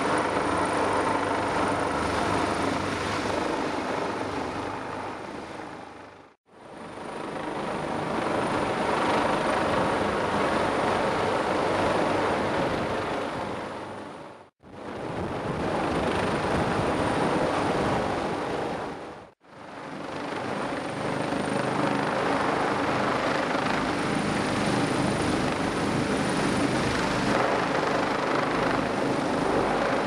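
Disaster-prevention helicopter hovering low overhead: a loud, steady rotor and engine noise with a faint high whine, as a rescuer is winched up on the hoist. The sound fades out and back in three times, around 6, 14 and 19 seconds in.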